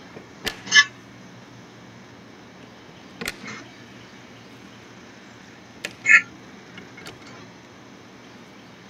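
Short, sharp metallic clicks and clanks of a horse trailer's side-door latch and hasp being worked shut: a pair just under a second in, one around three seconds in, and a louder pair about six seconds in, the last with a brief metallic ring, over a steady faint background hiss.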